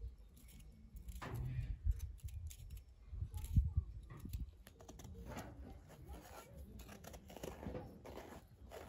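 Broccoli florets being cut off the stalk with a small hand-held knife: light, crisp snaps and rustles at irregular intervals.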